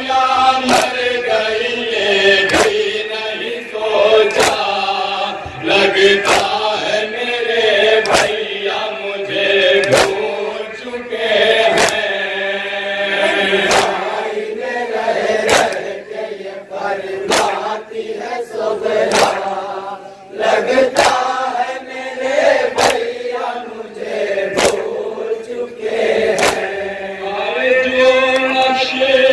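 Shia noha lament sung in Urdu: a man leads into a microphone and a group of men chant along with him, over rhythmic chest-beating (matam) slaps about once a second.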